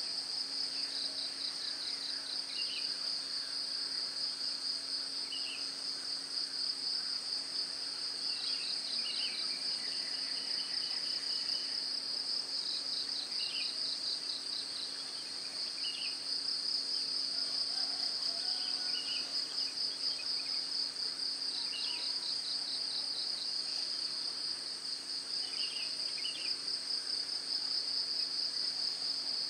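Dense insect chorus of the rice fields: a steady, high-pitched trill that pulses rapidly, with a fainter, even higher band above it. Scattered short chirps sound over it, and a faint low hum runs beneath.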